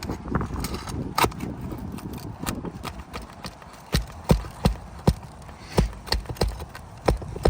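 A series of sharp knocks on an asphalt-shingle roof, scattered at first, then coming about two or three a second from about halfway through.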